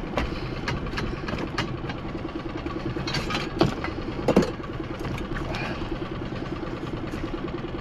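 Small boat's engine idling with a steady low throb. Over it, a lobster pot is hauled over the side and onto the deck, with several sharp knocks and rattles; the loudest come a little past halfway.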